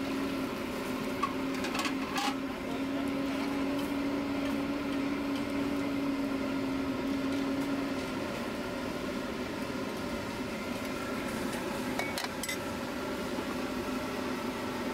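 Steady mechanical hum with a constant low tone over a hiss; the tone weakens about eight seconds in. A few light metal clinks of cooking utensils come about two seconds in and again near twelve seconds.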